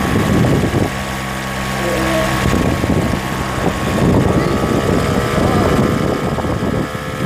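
A vehicle's engine running steadily while driving, with road and wind noise rushing over the microphone.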